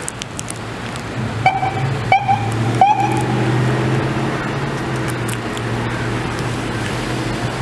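Street traffic with a police SUV's engine running as it pulls away. About a second and a half in there are three short, evenly spaced high toots, a bit under a second apart.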